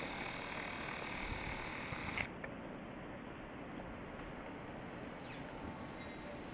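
Steady, faint outdoor background hiss of a calm, still neighbourhood, with a single sharp click about two seconds in.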